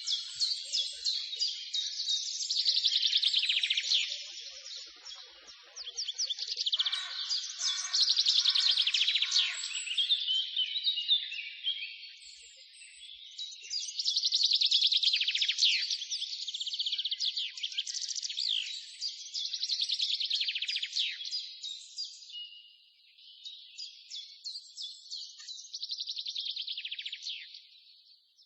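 Songbirds singing: runs of fast, high chirps and trills in phrases a few seconds long, coming one after another with short quieter gaps.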